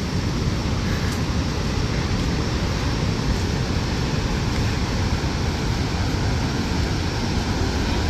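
Khone Phapheng waterfall: a steady rush of the Mekong's water pouring over the falls and rapids.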